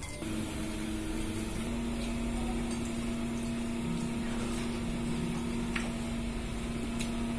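A steady low mechanical hum, like a small motor or household appliance running, with a couple of faint clicks.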